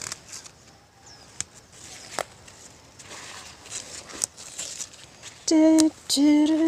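A few sharp clicks and snaps over a quiet background, then a man's voice singing held, drawn-out notes in a tune, starting about five seconds in.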